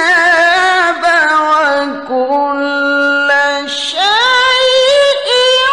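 A man's voice reciting the Quran in the melodic tilawah style, holding long ornamented notes with vibrato. About four seconds in, the voice leaps up to a much higher pitch and holds it.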